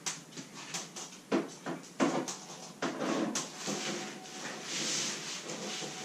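Backpacking tent being handled during setup: the fabric rustles while the poles and their fittings give irregular clicks and knocks, with the rustling thicker in the second half.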